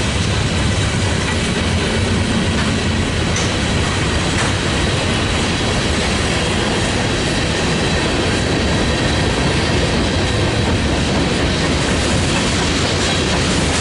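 Freight train cars rolling past at close range: a steady, loud rumble of steel wheels on the rail with a clickety-clack.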